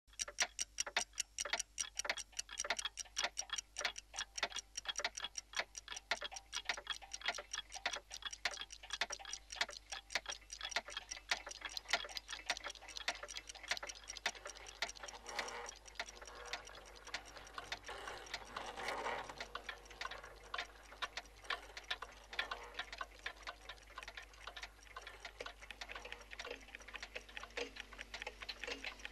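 A roomful of clocks ticking together: many overlapping ticks, several a second, with the sharp ticks softening into a denser mass after the middle. A low steady tone joins near the end.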